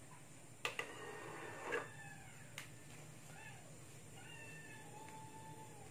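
Disc tray of an HDT Premier-98d karaoke DVD player drawing a disc in, with a couple of sharp clicks and a knock in the first two seconds as the tray shuts. Soft wavering, gliding pitched calls follow, the last one held for over a second near the end.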